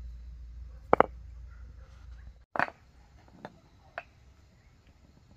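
A few sharp knocks, like hard strikes: a quick double knock about a second in, a louder single knock just after the middle, then two fainter ones. A low steady rumble underneath cuts off suddenly just before the loudest knock.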